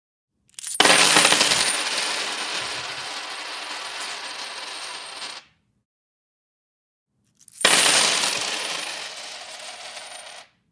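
Many coins spilled onto a wooden table, twice: each spill starts with a loud clatter that thins into a long jingling cascade of coins settling and rattling, the first lasting about five seconds and the second about three, with silence between.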